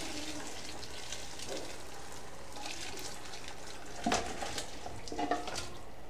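Broth and pieces of cooked beef hoof poured from a pot into a large aluminium stockpot of soup: a steady pouring splash, with two heavier splashes about four and five seconds in.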